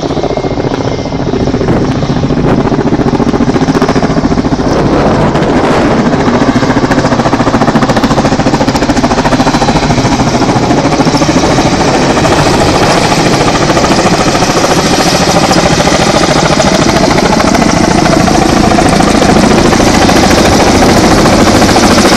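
Firefighting helicopter flying in and settling into a low hover over the water to take on water with its bucket. Its rotors beat rapidly and steadily. The sound grows louder over the first couple of seconds, then stays loud.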